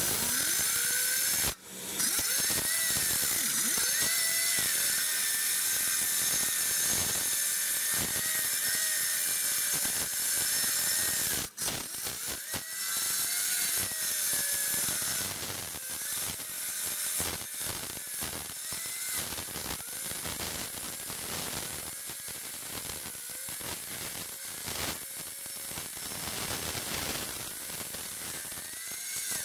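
Hose-powered crack-cleaning saw running its blade through a concrete slab: a continuous high whine over a strong hiss, wavering in pitch as the blade takes load. It cuts out twice for a moment, once near the start and once about a third of the way in.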